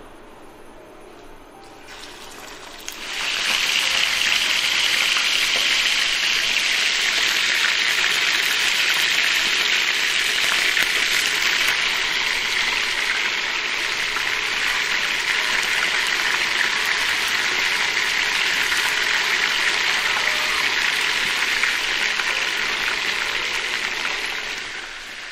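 Marinated chicken drumsticks sizzling in a hot pan, a loud steady hiss that starts abruptly a couple of seconds in and falls away near the end.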